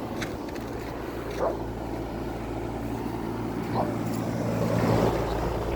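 2006 American Standard Allegiance 13 central air conditioner's outdoor condensing unit running steadily: a low compressor hum under the even rush of the condenser fan.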